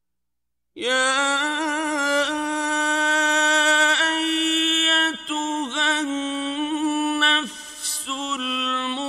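A man reciting the Quran in Arabic in the melodic chanted style, holding long, wavering notes with short breaks for breath. It sets in about a second in, after silence.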